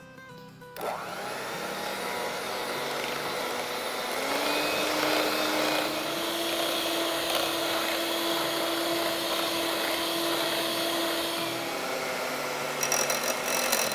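Sunbeam Mixmaster electric hand mixer running steadily, its beaters whipping thick gram-flour batter in a glass bowl to make it light and airy. The motor's hum steps up in pitch about four seconds in, and a few clicks come near the end.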